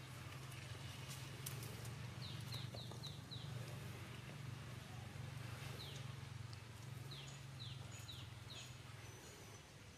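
A bird calling in quick runs of short falling chirps, four or five at a time, over a steady low hum and a few light crackles.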